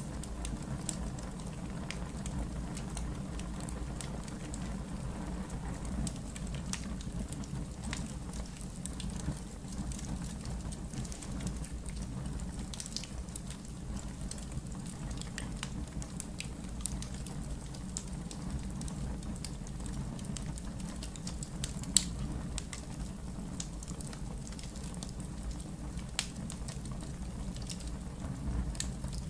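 Wood fire burning in a fireplace: a steady low rumble with frequent scattered crackles and small pops, and one sharper pop about three-quarters of the way through.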